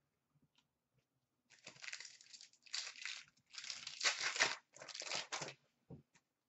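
An Upper Deck hockey card pack's wrapper being torn open and crinkled by hand, in several crackly surges over about four seconds, followed by a soft knock near the end.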